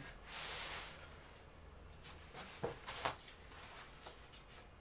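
Breathing of a person doing crunches on an exercise mat: a long, hissing exhale about half a second in, then a few short, sharp breaths and small rustles around three seconds in.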